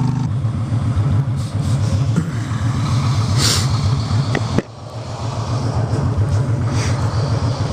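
Honda Shadow V-twin through Vance & Hines Cruisers exhaust pipes. It comes off a steady high rev just as the sound begins and settles into a low, uneven pulsing beat while riding. About four and a half seconds in the sound briefly drops.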